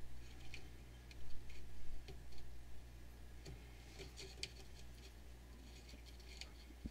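Faint, irregular small clicks and ticks of a soldering iron and wires being handled against the metal solder terminals of a tube amplifier chassis.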